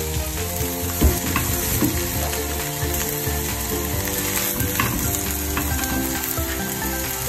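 Mixed vegetables sizzling in a frying pan over a high-medium gas flame, with a single clink about a second in as a glass lid is set on the pan.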